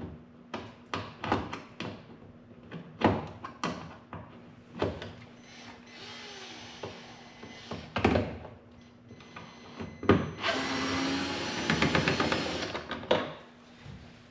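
A small power driver runs for about two seconds, steady and whirring with a fine ticking, backing out the T30 screws that hold a UTV's plastic front fender. Before it come scattered clicks and knocks of tools and plastic panel parts being handled, and a shorter burst of hiss with ticks.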